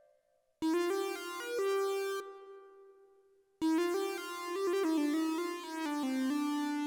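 Short Turkish-style melodic phrases on an electronic keyboard synthesizer, played as separate samples: one starts just after half a second in and fades away, and after a silent gap a second phrase starts abruptly about three and a half seconds in.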